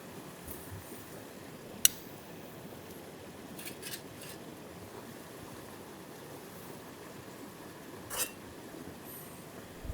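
A few sharp clicks and taps, the loudest about two seconds in, a small cluster around four seconds and another near eight seconds, over a steady low hiss.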